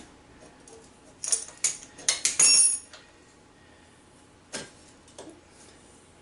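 Metal tools and parts clinking together during hands-on work on an ATV: a quick cluster of sharp metallic clinks with a bright ring a little over a second in, then two single knocks later.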